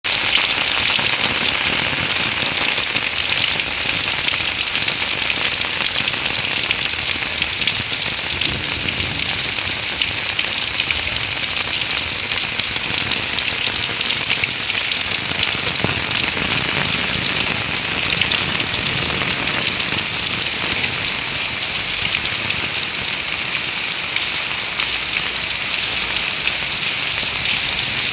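Heavy rain falling steadily, a dense hiss of many drops hitting surfaces, with no let-up.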